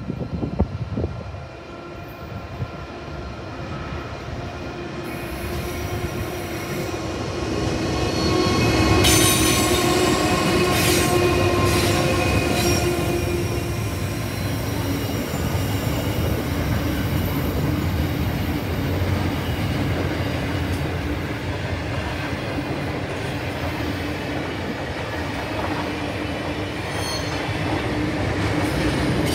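Diesel-hauled freight train approaching and passing, growing louder over the first nine seconds or so as the locomotive comes by. Then double-stacked container wagons roll past with a steady rumble of wheels on rail and a thin, steady squeal over it.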